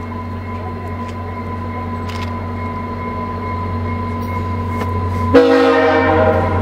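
VIA Rail F40PH-2 diesel locomotive approaching, its engine drone slowly growing louder, then a sudden loud horn blast about five seconds in.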